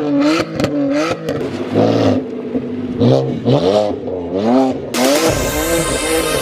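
BMW N52 inline-six revved in several short blips through an exhaust that is effectively straight-piped: gutted primary and secondary catalytic converters, no resonator and no muffler. Its pitch rises and falls with each blip. Music starts near the end.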